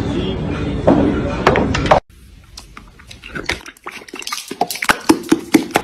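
Pool balls clicking against each other under a cue shot, over room noise. About two seconds in this gives way to a horse mouthing a plastic water bottle: a run of irregular sharp plastic clicks and knocks.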